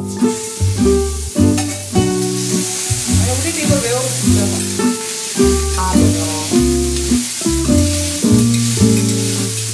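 Ground beef balls sizzling on the hot plate of a Balmuda The Plate Pro electric griddle as they are laid down and pressed flat with a spatula: a steady sizzle that starts as the first ball touches the plate. Background music with guitar plays throughout and is at least as loud as the sizzle.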